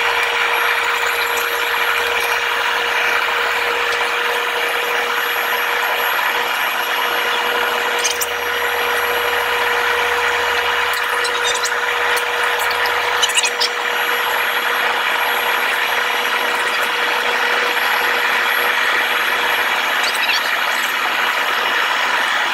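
Steady cabin noise of a jet airliner in its climb after takeoff: an even rush of engine and airflow noise with a steady droning tone underneath.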